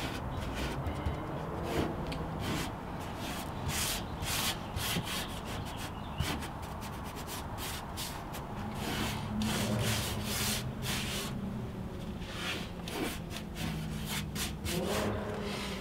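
Gloved hand rubbing wet rust-converter coating over a car's rusty sheet-metal trunk floor: a run of short, irregular rubbing swipes.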